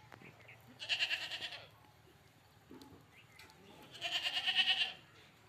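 Barbari goat bleating twice, each call about a second long with a quick wavering tremble, the second about three seconds after the first.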